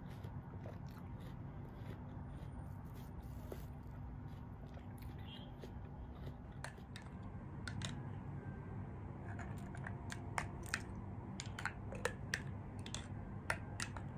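Metal spoon clinking and scraping against a glass jar, a series of short sharp clicks that come thickest in the second half, over a low steady hum.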